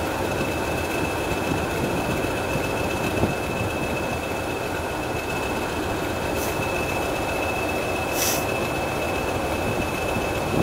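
Class 20 diesel-electric locomotive's English Electric engine running steadily as it pulls slowly away, with a steady high whistle over the engine. Two brief hisses come about six and eight seconds in.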